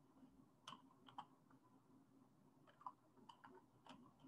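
Faint, irregular keystrokes on a computer keyboard as a word is typed.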